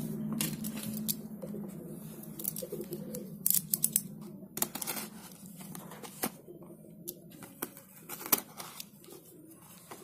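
A taped cardboard parcel being handled and cut open with a box cutter: crinkling and tearing, with a run of sharp clicks and snaps.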